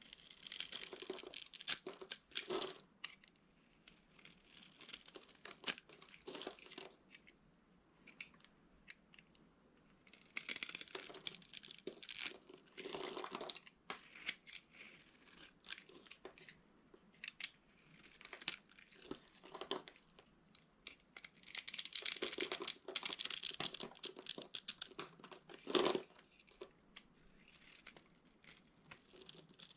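Dry soap being crushed and broken up, crunching and crackling in several bursts a few seconds long, with quiet gaps between them and a couple of sharper cracks.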